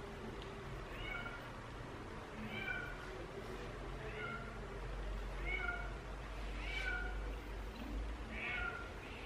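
A cat crying: faint, repeated meows, about six short calls each falling in pitch, roughly one every second and a half.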